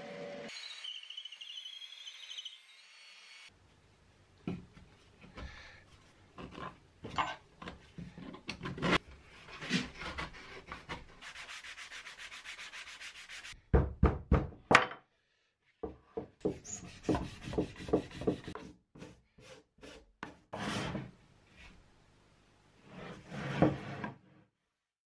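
A shoe last being sanded by hand with a sanding block: irregular rubbing strokes, some louder and some faster, with short pauses between them. At the very start, a bandsaw running through the last cuts off.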